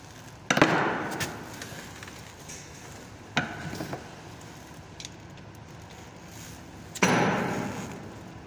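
Metal knocking against metal: two loud clanks, each ringing out for about a second, with a lighter double knock between them.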